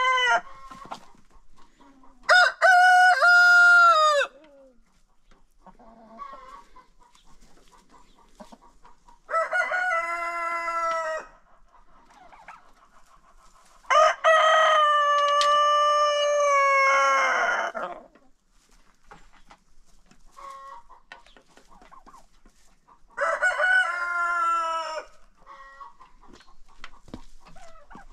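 Roosters crowing one after another: a crow ending about a second in, then four more spaced several seconds apart, the longest lasting about four seconds. Quieter clucking fills the gaps between crows.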